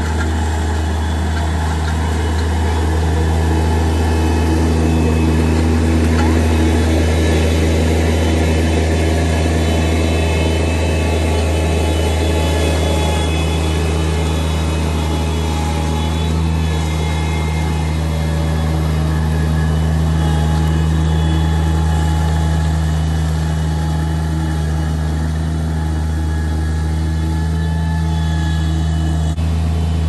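Bobcat MT85 mini track loader's diesel engine running steadily with a deep, even hum while the loader drives with a loaded bucket.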